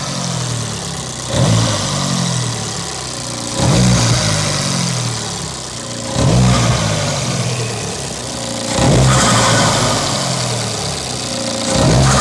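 Turbocharged Fiat engine idling and being blipped: five short revs about every two and a half seconds, each rising quickly and settling back to idle, with a hiss after each blip.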